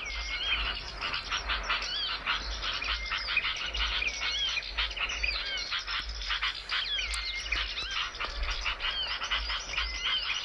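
Small songbirds calling in a dense, rapid, continuous chatter, with short curling whistles over it, on a recording that carries a low hum.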